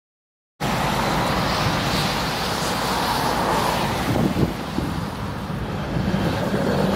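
Road traffic going by: cars and a lorry with steady tyre and engine noise, starting suddenly about half a second in. Near the end a Tatra tram draws close on its rails, adding a low steady hum.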